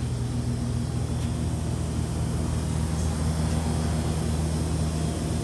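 Steady low hum of running air-conditioning equipment, holding several fixed low tones over a faint even rush.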